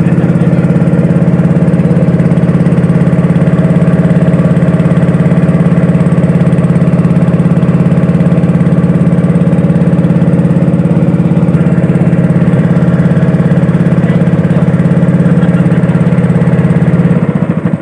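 Small wooden boat's engine running steadily under way. Near the end it changes to a slower, pulsing beat.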